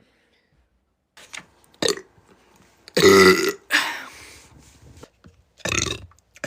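A young woman burping: a run of separate burps, the loudest and longest about three seconds in.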